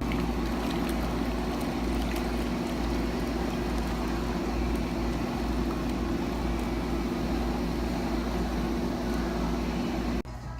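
A steady machine hum over a low rumble, with no speech. It cuts off suddenly near the end.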